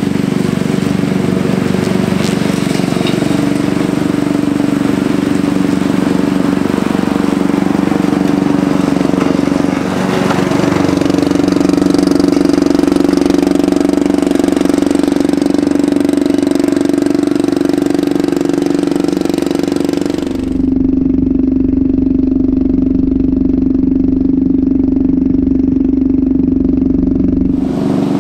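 Riding lawn tractor's engine running steadily through a homemade multi-pipe exhaust as the mower drives across the lawn. The drone shifts slightly about ten seconds in and turns duller about twenty seconds in.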